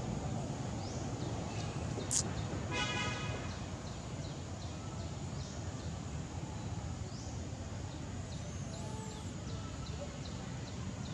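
Outdoor ambience under trees: a steady low rumble with faint, repeated short bird chirps. A sharp click about two seconds in is followed by a brief, ringing, pitched call.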